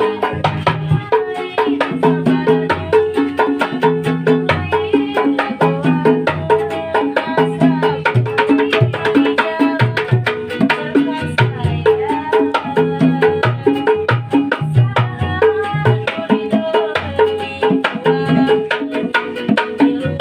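Instrumental music with a steady beat carried by hand-drum percussion and pitched melody notes, played by a street busking band.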